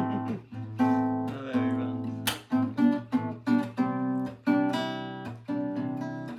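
Background music: acoustic guitar playing a plucked and strummed melody with a steady rhythm.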